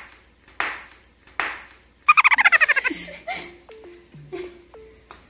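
A girl giggling: a quick run of high laughs, about ten a second, falling in pitch about two seconds in, over light background music. Three short hissing bursts come before it.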